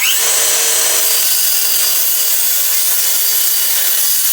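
DeWalt DCS575 54 V FlexVolt cordless circular saw with a new DeWalt Extreme Runtime blade, spun up and cutting at full speed. It runs loud and steady, then winds down with a falling whine near the end.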